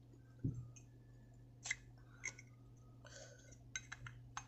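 Faint scattered clicks and a short scrape of a Zippo-style lighter's metal insert being worked in and out of its case; the insert sits a little loose.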